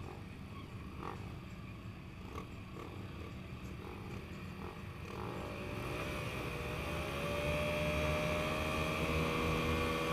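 Motocross bikes idling at the starting gate, among them a close-by Honda CRF230 air-cooled four-stroke single. About halfway through the engines rev up, rising in pitch and then held at high revs, the way riders hold the throttle while waiting for the gate to drop.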